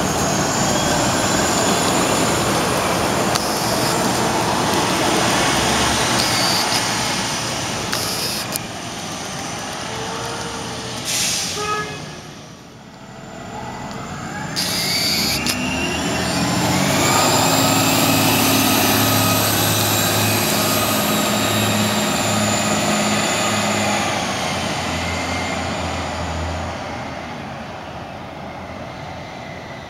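MTA city transit buses running through the terminal, with a few short air-brake hisses. About halfway through, a bus pulls away: its engine and transmission whine rise in pitch, hold steady, then fade as it drives off.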